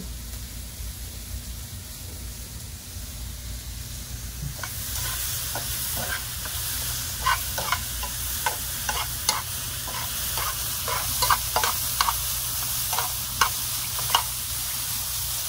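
Sliced green peppers, onions and mushrooms sizzling in oil in a frying pan while metal tongs toss them, clicking and scraping against the pan many times. The sizzle grows louder about five seconds in.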